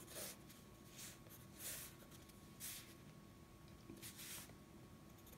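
Faint scratching of a graphite pencil drawing short strokes on sketchbook paper, about five brief strokes with the last a little longer.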